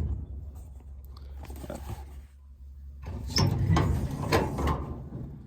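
Clunks, knocks and scrapes of handling tools and moving about in a pickup truck bed, with a burst of clatter about three seconds in that lasts until near the end. No drill is running.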